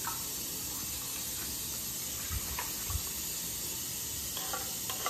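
Steady background hiss with a few faint clicks. Near the end come several light metallic clinks of a spoon against a seasoning container.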